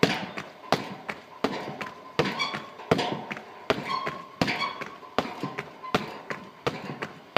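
Muay Thai roundhouse kicks landing on a hanging heavy bag: about ten sharp thuds, one every three-quarters of a second.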